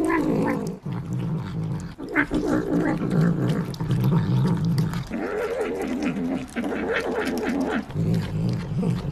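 Tabby cat growling and mewing in repeated bouts of a second or so while it eats wet food.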